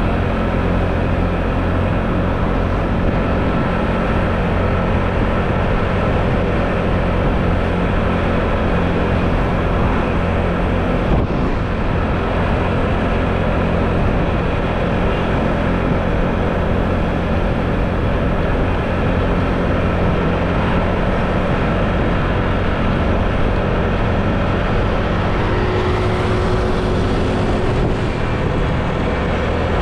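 Motor scooter running at a steady cruising speed, its engine hum mixed with road and wind noise, with one short click about eleven seconds in.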